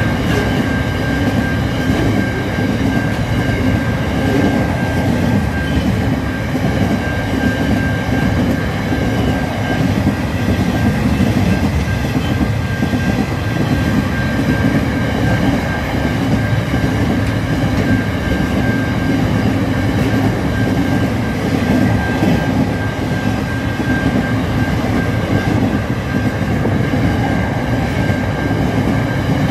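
Train of freight cars rolling past at steady speed: continuous rumble of wheels on the rails with a thin, steady high-pitched ring over it.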